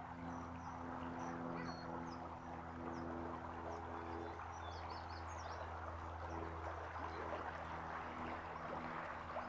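River water rushing steadily past the bank, with small birds chirping in short high notes over it and a steady low hum underneath.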